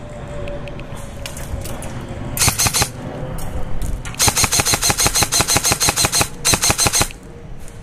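Airsoft rifle firing three fully automatic bursts of rapid, evenly spaced shots: a short burst about two and a half seconds in, a long burst of about two seconds at roughly ten shots a second, then a brief burst near the end.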